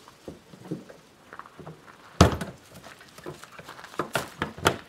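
Hollow knocks and thunks of a plastic dog kennel being handled and strapped onto an ATV's rear rack: one sharp knock about two seconds in, then several quicker knocks near the end.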